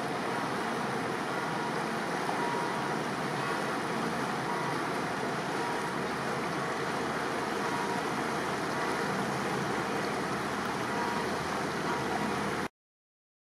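Steady running noise of a cruise boat under way on a canal: engine hum mixed with the rush of water and air. It cuts off suddenly just before the end.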